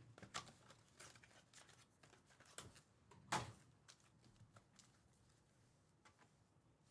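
Mostly near silence, with faint rustles and soft taps of a trading-card hobby box being opened and its wrapped packs handled and stacked on a mat. One slightly louder handling sound comes a little over three seconds in.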